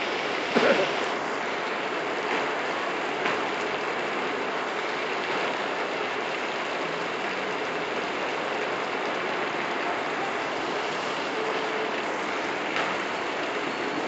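Heavy rain falling steadily on a street and pavement, an even hiss of rain on wet surfaces. A few brief louder taps stand out, the loudest about half a second in.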